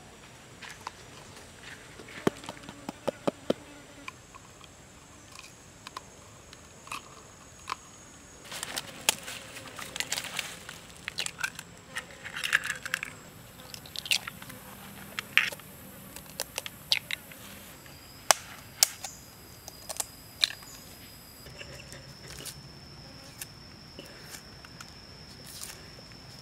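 A steady high insect drone, shifting to a lower pitch about two-thirds of the way through, under scattered sharp taps and clicks of hands at work, among them duck eggs being cracked and opened over a bowl, with the densest run of taps in the middle.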